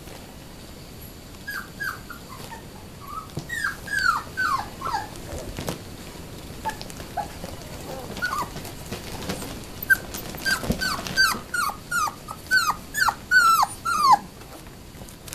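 Four-week-old standard poodle puppies yelping: short, high squeals that fall in pitch, a few scattered in the first five seconds, then a quick run of them from about ten to fourteen seconds in.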